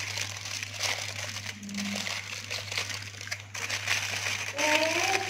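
Aluminium foil crinkling and crackling as it is folded and pressed flat by hand into a parcel.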